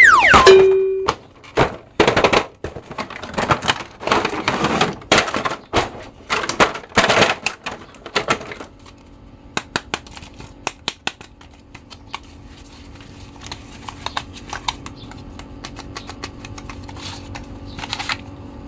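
Clear plastic packaging crackling and rustling in quick irregular bursts as toy action figures are handled and pulled out of it, thinning to occasional light clicks and taps about halfway through. It opens with a short falling swoosh sound effect that ends in a brief steady tone.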